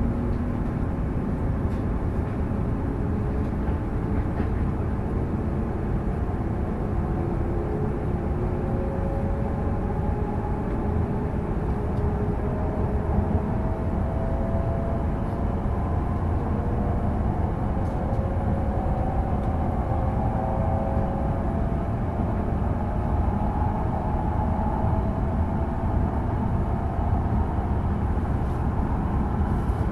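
Tohoku Shinkansen train running at speed, heard inside the passenger cabin: a steady low rumble and roar of the running train, with a faint whine slowly rising in pitch.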